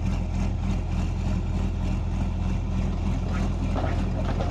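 Tractor engine running steadily at an even, low pitch.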